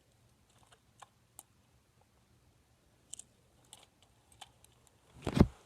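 Scattered light clicks and taps from handling a small toy RC car and its charging wire, then one loud, dull thump near the end as the camera is kicked.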